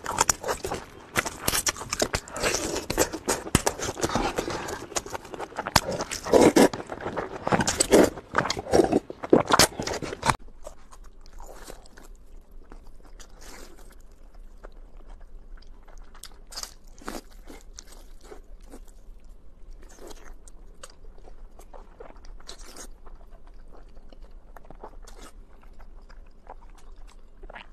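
Close-miked eating of meat on the bone: loud, dense crunching, biting and chewing for about the first ten seconds. It then drops suddenly to quieter, sparser chewing and small wet mouth clicks.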